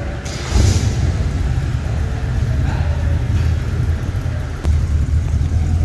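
Car engine running at low speed, a deep steady rumble that swells about half a second in and again near the end.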